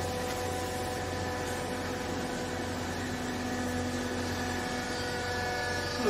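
Vertical hydraulic baler's electric motor and hydraulic pump running, a steady hum with a whine of several held tones; a lower tone joins for a few seconds in the middle.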